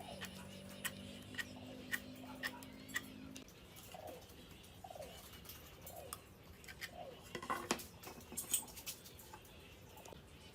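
Light taps and knocks of hand tools working wood, about two a second for the first three seconds, then scattered, with a louder cluster of clicks near the end.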